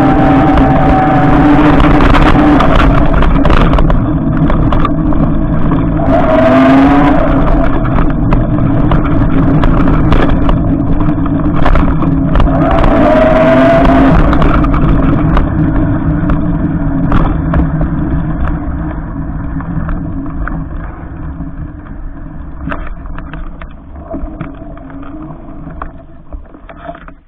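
Electric bike riding through snow: the motor's whine over a steady rumble of tyre and wind noise, the whine dipping and rising in pitch twice as the speed changes. Everything grows quieter over the last ten seconds as the bike slows down.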